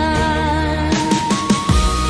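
Instrumental music from an AI-generated Chinese-style song: a held, wavering melody over a deep bass. About a second in, the bass drops out, then drum hits and new held melody notes stepping upward come in.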